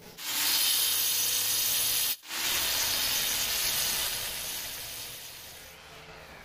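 Angle grinder with a cutting disc slicing through a granite strip: a loud, hissing grind that cuts out abruptly for a moment about two seconds in, then resumes and gradually fades away.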